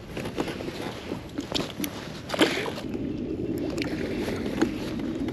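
Small waves lapping and sloshing against a plastic fishing kayak's hull, with scattered light clicks and knocks, one sharper knock about two and a half seconds in.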